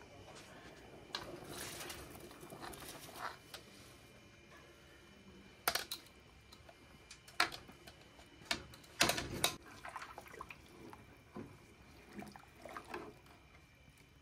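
Rice being tipped into a large aluminium pot of boiling stock, then a scatter of sharp metal clinks and knocks as the pot lid and utensils strike the pot, the loudest cluster about nine seconds in; a wooden spatula stirs the pot near the end.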